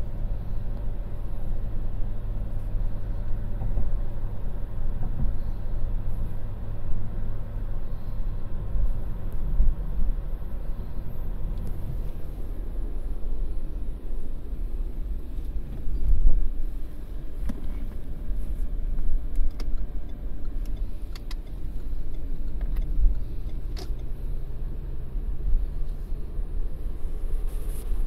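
Steady low engine hum and road rumble inside the cabin of a car cruising at about 65 km/h, with a few short knocks in the second half.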